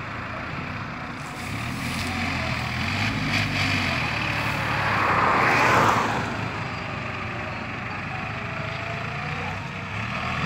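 Ford New Holland farm tractor's diesel engine running steadily under load as it pushes and ploughs soil, with a louder surge of noise about six seconds in.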